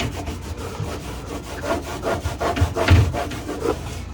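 A fridge's interior being scrubbed with a two-layer pad of Norwex cloths, a scratchy scrubbing cloth under an absorbent one: quick back-and-forth rubbing strokes, loudest about three seconds in.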